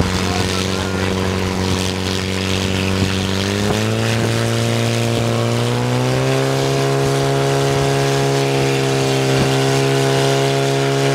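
Portable fire pump's engine running hard, its pitch stepping up twice, about four and six seconds in, then holding steady and high as it pushes water through the hoses to the jets.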